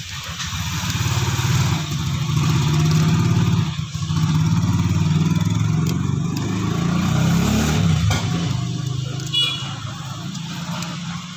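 An engine running steadily, its pitch climbing about seven seconds in before the sound drops away.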